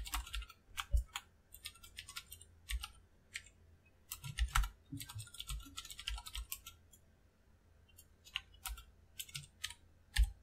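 Typing on a computer keyboard: irregular runs of key clicks, with a pause of about a second some two-thirds of the way through.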